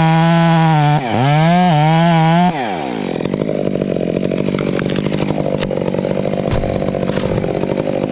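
Gas chainsaw running at high revs, dipping briefly about a second in; about two and a half seconds in the revs fall away and it keeps running lower and rougher.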